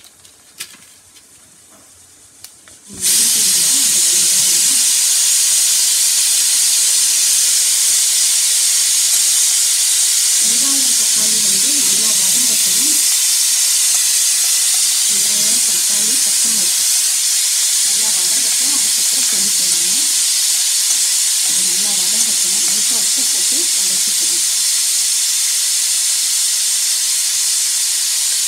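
Chopped shallots, tomatoes and green chilli dropped into hot oil in a cast-iron kadai, sizzling loud and steady. The sizzle starts suddenly about three seconds in, after a quieter start in which fennel seeds sit in the oil.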